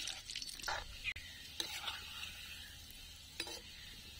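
Gulab jamun sizzling steadily as they deep-fry in oil in an iron kadhai on a low flame, with a few light knocks of a metal slotted spoon as they are turned.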